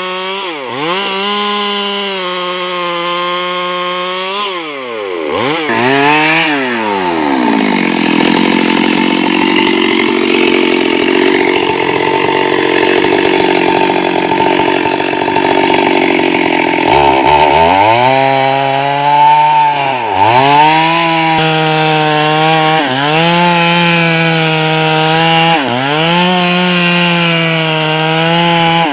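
Chainsaw running at high revs, its pitch dipping briefly every two to three seconds. About five seconds in the pitch falls and it runs lower and rougher for about ten seconds, as if cutting under load, then climbs back to high revs with the same regular dips.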